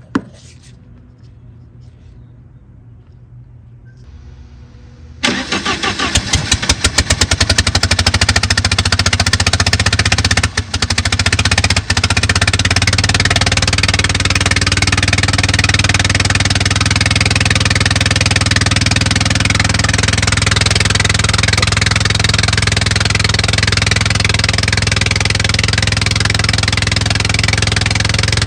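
Bobcat 732 skid steer engine cranking and catching about five seconds in, then running steadily, with two brief dips in the sound a few seconds after it starts.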